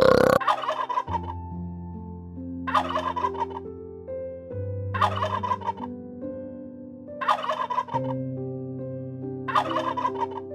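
Wild turkey tom gobbling five times, a rapid rattling call of under a second each, about every two seconds, over soft background music.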